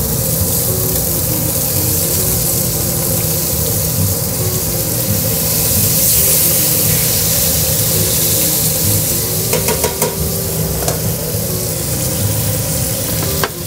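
Flank steak searing in olive oil in a hot non-stick pan, with sliced onions and peppers frying in a second pan: a steady, even sizzle. A few short clicks come about ten seconds in.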